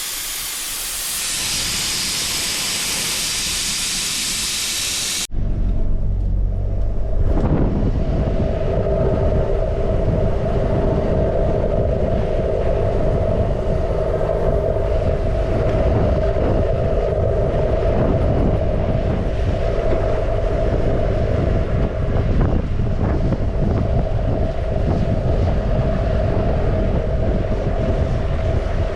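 Air hissing loudly and evenly out of a tyre valve as a four-wheel drive's tyres are let down for soft ground, cutting off suddenly about five seconds in. Then the four-wheel drive is driving along a track: a steady low rumble with a constant hum.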